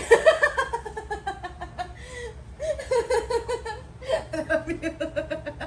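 A woman laughing hard in three bouts. The first slides down in pitch, and the last is a quick run of short ha-ha pulses.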